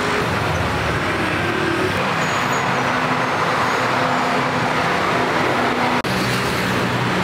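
City street traffic: a steady wash of road noise with the hum of vehicle engines running, briefly broken about six seconds in.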